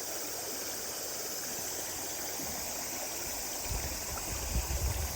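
A small country stream running steadily, an even hiss of flowing water, with a few low rumbles about four seconds in.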